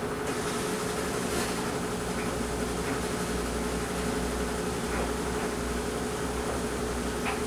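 Kenmore front-load washer and a clothes dryer running together: a steady machine hum with a low rumble and a constant tone, with a few faint light clicks scattered through.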